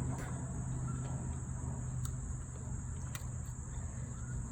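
A steady low hum with a constant high thin whine, and a few faint clicks of small parts being handled as the trimmer's throttle linkage is hooked onto the carburetor.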